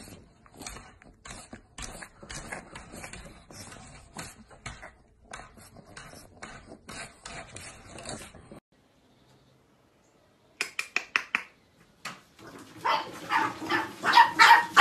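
Chow Chow puppies yipping and whimpering, the loudest sound, in the last two or three seconds. Before that, a run of short, soft noises about twice a second for about eight seconds, then a short gap and a few sharp clicks.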